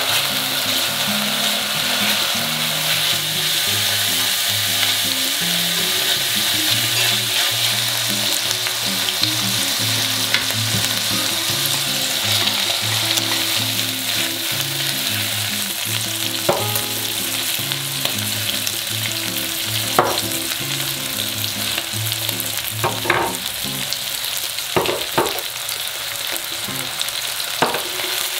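Thin-sliced beef brisket sizzling steadily as it is fried and stirred in a pot with sliced green onion, browning before the soybean paste goes in. A few sharp clicks come in the second half.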